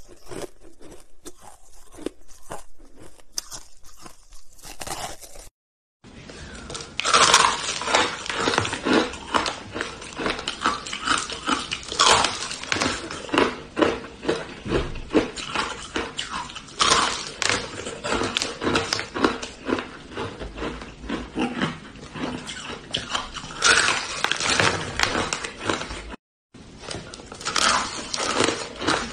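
Hard frozen pink ice being bitten and chewed close to the microphone: a dense run of crunches and crackles as the ice breaks, cutting out briefly twice.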